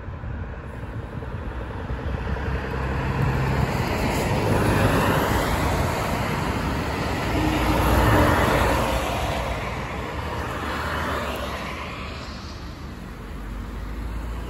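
Road traffic: cars passing one after another on a main road, the noise swelling and fading as each goes by, loudest about eight seconds in.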